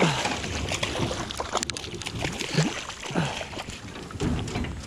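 Water splashing and sloshing at the side of a boat as a small rainbow trout is brought into the landing net, with scattered knocks and clatter.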